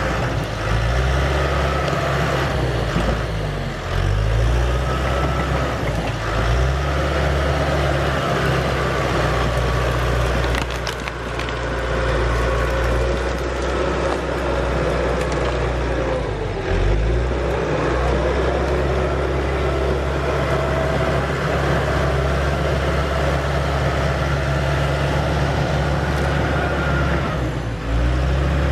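Large diesel engine of a John Deere 550 crawler bulldozer running under load, its note dipping and recovering several times.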